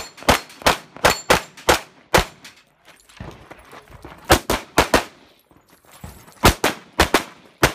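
Semi-automatic pistol fired rapidly in a USPSA stage: three quick strings of shots, several a second, split by pauses of about two seconds while the shooter moves between shooting positions.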